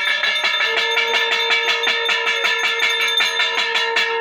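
Brass puja hand bell rung rapidly, several strokes a second, joined from about a second in by a conch shell blown in one long steady note. The bell stops near the end while the conch holds on.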